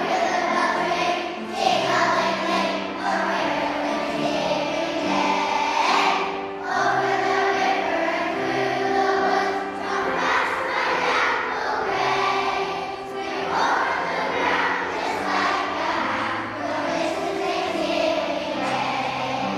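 A choir of first- and second-grade children singing together, with steady low accompanying notes underneath.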